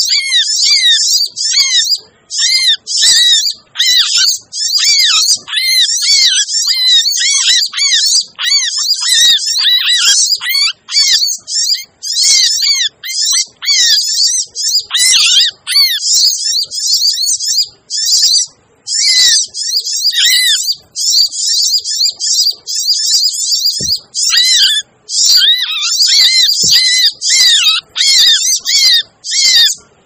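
Sunbird lure recording: a busy, noisy stream of rapid, high-pitched chirps and twittering trills from sunbirds, broken by a few short lulls.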